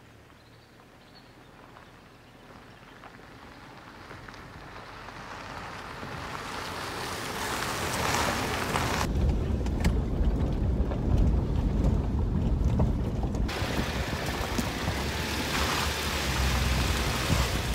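A Subaru Outback driving on a dirt forest track: tyre and road noise grows louder over the first eight seconds as the car comes up to and passes close by. From about nine seconds a heavy low rumble of the car driving is heard close to the wheel.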